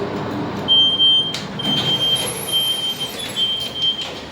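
Passenger lift at the ground floor: a high electronic beep sounds in four long pulses over the lift's mechanical rumble, with a few sharp knocks among them.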